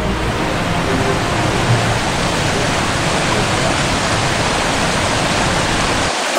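Rushing water of a rocky creek cascade, a steady loud rush with no let-up; its deep rumble drops away just before the end.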